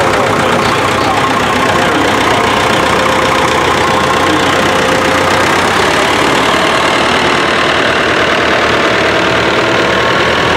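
Vintage tractor engines running steadily as the tractors drive slowly past, the nearest a red Massey Ferguson.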